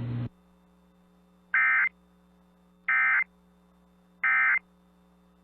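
Emergency Alert System end-of-message signal from a NOAA Weather Radio broadcast: three identical short, buzzy bursts of digital data tones about 1.3 seconds apart, marking the end of the alert. A steady radio hiss cuts off just before them.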